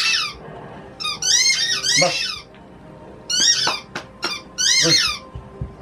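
A Shiba Inu biting a squeaky dog toy, the toy squealing in short high-pitched squeaks about once a second, some coming in quick pairs.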